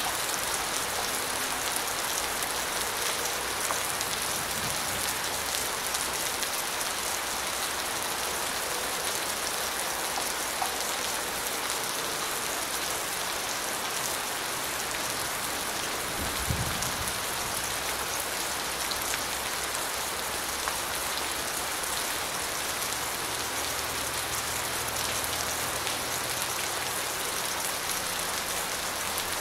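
Steady rain falling: a dense, even hiss of many fine drops pattering. A brief low thump about halfway through.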